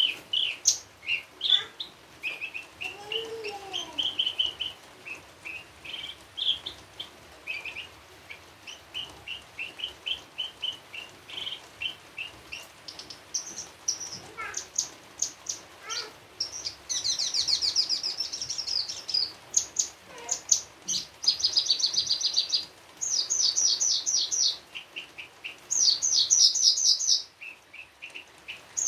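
Javan bush lark (branjangan) singing a long, varied song of chirps, short whistled phrases and fast rattling trills, with mimicked calls of other birds mixed in. Its opening phrases are softer; from about halfway through it breaks into louder bursts of rapid trilling.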